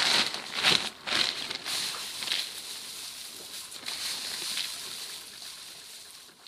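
Plastic bag crinkling and rustling as it is handled and pulled open over chopped straw, with several sharp rustles in the first two seconds, then a steadier rustle that fades near the end.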